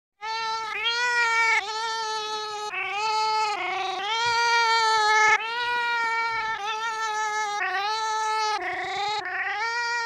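A domestic cat giving about eight long, drawn-out meows back to back, barely a pause between them, the pitch wavering within each call. It is the cat's way of asking to be petted.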